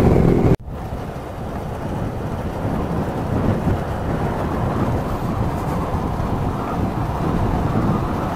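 Yamaha R15 V3's single-cylinder engine running for about half a second, then a sudden cut to steady wind rush and low rumble on the riding microphone, with no clear engine note.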